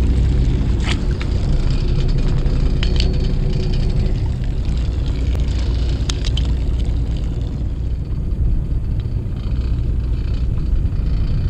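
Fishing boat's engine running with a steady low drone, with a few light clicks over it.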